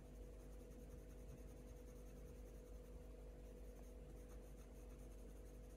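Faint scratching of a Faber-Castell Polychromos colored pencil blending over hot-press watercolour paper, over a steady low hum.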